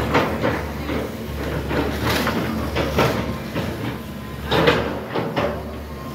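Demolition excavator with a grapple claw working a brick rubble pile: its diesel engine runs steadily underneath while bricks and timber crash and clatter in several sharp knocks, the loudest about four and a half seconds in.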